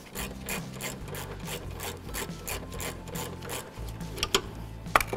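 Ratchet with an extension and a 10 mm socket being worked back and forth to loosen a bolt, giving quick rhythmic bursts of pawl clicking about five a second. Two sharper metal clacks follow near the end.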